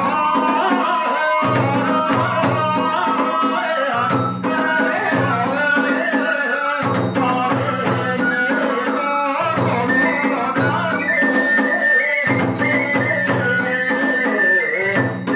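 Iwami kagura hayashi: a bamboo flute playing a gliding melody over drum strikes and the clash of small hand cymbals, in a steady driving rhythm.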